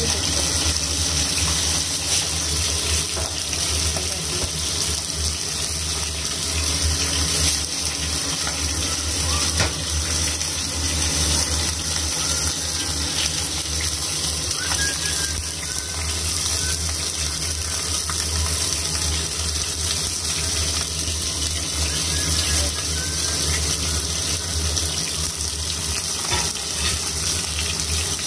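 Steak sizzling in hot oil in a frying pan on an induction cooktop: a steady hiss, with a low hum underneath.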